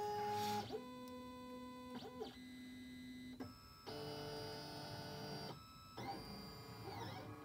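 Printrbot 3D printer's stepper motors whining as it moves its bed and print head: steady tones at a few pitches that jump to new notes every second or so, with brief pauses and sliding pitches where the motors speed up and slow down.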